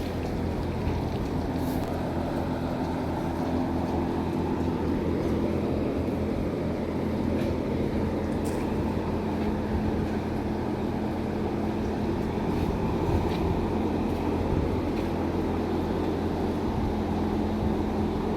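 A machine running steadily: a low, even hum with a few steady tones in it and no change in pace.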